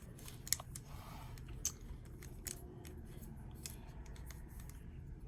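Plastic clicks of a 3x3 Rubik's cube's layers being turned: a handful of sharp clicks at irregular intervals as a move sequence is repeated.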